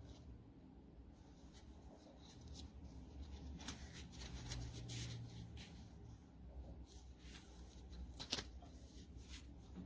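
Faint handling noise: scattered rustling and light clicks, with one sharper click about eight seconds in, over a low steady hum.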